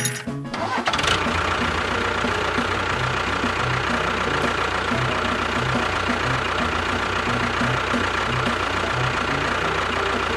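An engine idling steadily with a low, even knock, starting about a second in as the music cuts off.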